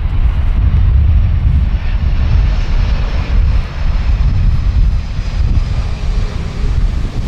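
Boeing 747-400 rolling out just after touchdown, its four turbofan engines giving a loud, deep, steady rumble with a rushing hiss above it.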